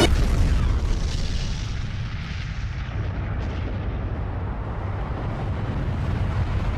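A deep, pitchless rumble like the tail of an explosion sound effect, dying away over the first two seconds and then holding steady.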